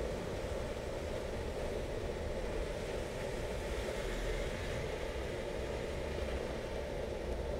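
Steady car noise: an even, unbroken hum and rush with no changes in pitch or level.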